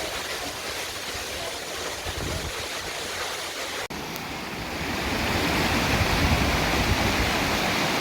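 Steady rushing water of a waterfall. It cuts out for an instant a little before halfway, then comes back and grows louder.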